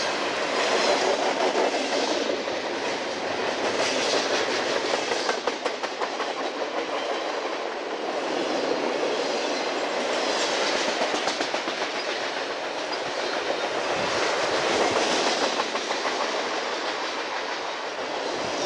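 Intermodal freight train's double-stack container cars and trailer-carrying flatcars rolling past, steel wheels clicking over rail joints amid a steady rolling rattle that swells and eases as the cars go by.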